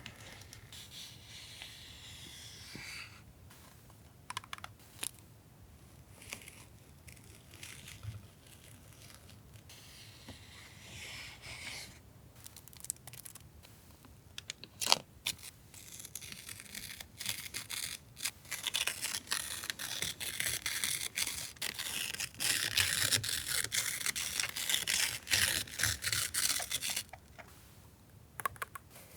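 Paper and packaging being handled close up: rustling and crinkling in stretches, with scattered taps and clicks, the busiest stretch in the second half. One sharp click comes about fifteen seconds in.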